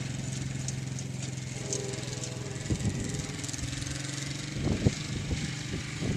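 ATV engine running steadily as it tows a roping dummy sled. Irregular low thumps and rumbles come in during the second half.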